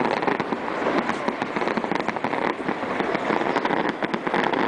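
Fireworks display: a dense, continuous crackle of many rapid small pops and cracks, several each second, over a steady rushing hiss.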